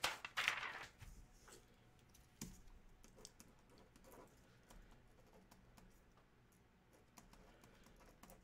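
Faint, scattered clicks of computer keyboard typing, after a brief rustle in the first second.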